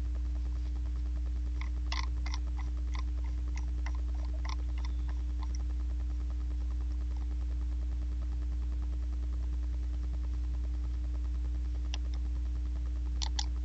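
Light clicks of a computer keyboard and mouse, a quick run of them about two to five seconds in and a few more near the end, over a steady low hum.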